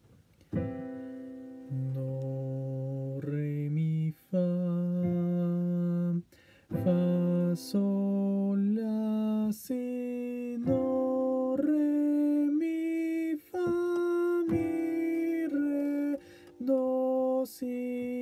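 Keyboard playing a slow Lydian-mode exercise: a run of held notes stepping up and down the scale over a sustained chord, each note lasting a second or two and cutting off cleanly.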